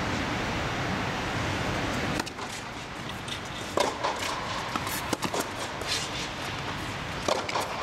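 Tennis balls struck by rackets and bouncing on an indoor hard court: a handful of sharp pops spread through the second half. A steady rushing noise drops away about two seconds in.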